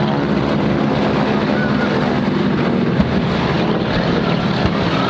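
An aircraft engine's drone fades away as the plane passes, with steady wind on the microphone. About three seconds in comes a sharp bang from an air-show pyrotechnic blast, and a smaller one follows near the end.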